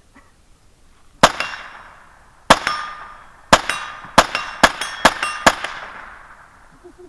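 Seven .22 rifle shots, spaced closer together toward the end, with a steel target ringing after most of them as the bullets hit it.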